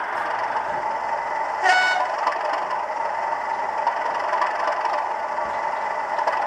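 A model diesel locomotive's sound-fitted horn gives one short toot about two seconds in, over the steady running noise of a model train on the layout.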